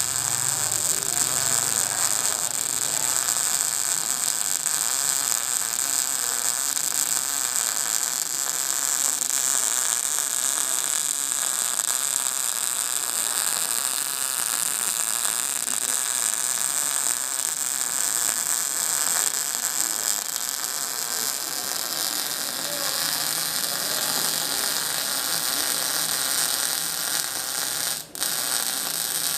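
Electric arc welding: a steady crackling hiss of the arc running continuously, with a brief break near the end where the arc goes out for a moment.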